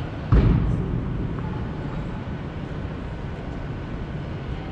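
Steady low rumble of a large indoor tennis hall, broken about a third of a second in by one loud, low thump that dies away within about half a second.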